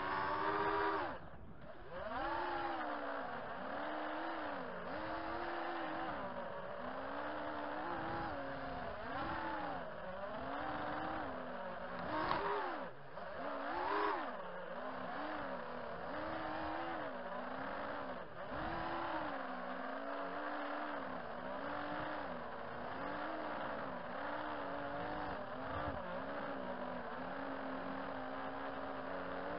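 Racing quadcopter's four 2206 2200 kV brushless motors spinning DAL 5040 three-blade props, a buzzing whine that keeps rising and falling in pitch with the throttle through fast flight. The sound drops away sharply for a moment about a second and a half in, and there are two harder throttle punches around the middle.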